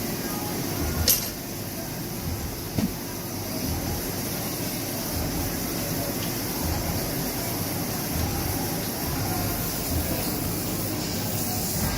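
Steady hum and hiss of running workshop machinery, with a sharp click about a second in and a short knock near three seconds.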